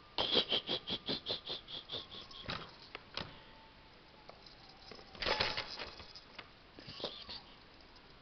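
Plastic baby activity toy clicking: a quick run of clicks, about six a second, that fades away over about two seconds, then a few single clicks and two short rattling bursts later on.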